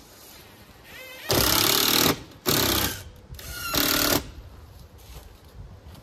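Cordless power driver driving fasteners into composite garage-door trim in three short bursts: a longer one about a second in, then two shorter ones, each starting with a brief rising whine as the motor spins up.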